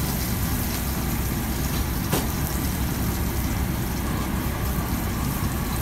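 Steady low rumble of a commercial kitchen's gas burner and ventilation, with clams, mussels and shrimp sizzling in a paella pan over the flame. A single light knock about two seconds in.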